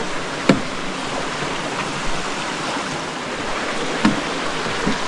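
Steady rushing of a mountain stream, with three short knocks about half a second in and twice near the end.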